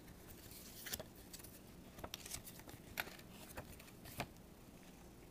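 Faint paper handling as a folded quick start guide is lifted out and opened: scattered light clicks and rustles, the sharpest about four seconds in.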